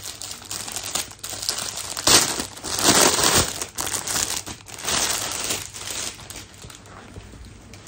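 Clear plastic packaging bag crinkling and rustling as a folded bath mat is pulled out of it, loudest about two to three seconds in and dying away near the end.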